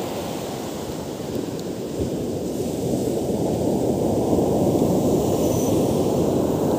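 Ocean surf breaking and washing up a sandy beach: a steady rushing that grows slightly louder about three seconds in.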